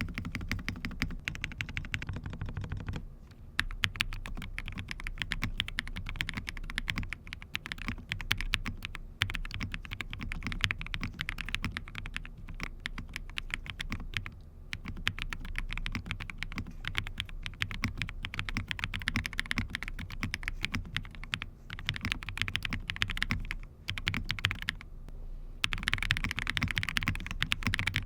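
Typing on a Jris 75 custom mechanical keyboard: fast, continuous keystrokes with a few brief pauses.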